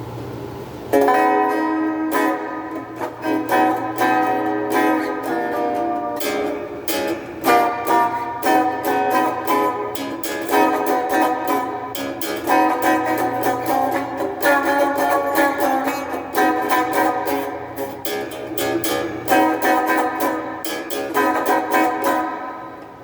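Donner DST-80 strat-style electric guitar played through its small included practice amp with a hall reverb pedal on, chords picked and strummed from about a second in. A low steady amp hum sits underneath.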